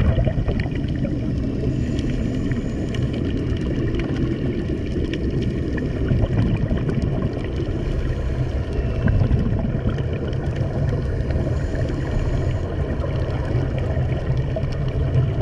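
Underwater sound through a camera's waterproof housing: a steady, muffled low rumble with bubbling and many small crackling clicks.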